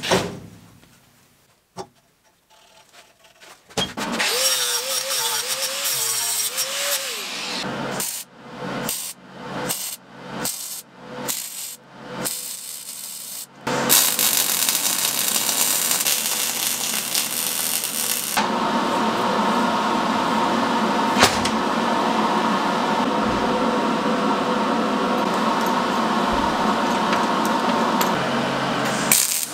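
MIG welder crackling through a series of short tack-weld bursts, then a long continuous weld run, welding a steel wheel bearing hub onto a rusty steel pipe axle.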